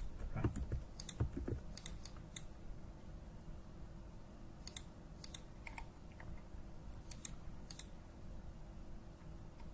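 Computer mouse and keyboard clicks, a dozen or so short sharp clicks at irregular intervals, bunched in the first two and a half seconds and again around five and seven seconds in.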